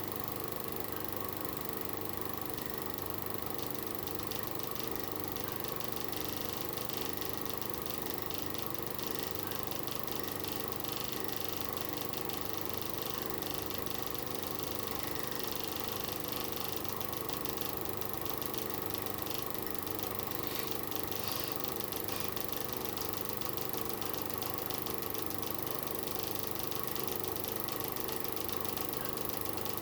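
Electric fan running steadily after repair, its motor humming with a faint rattle.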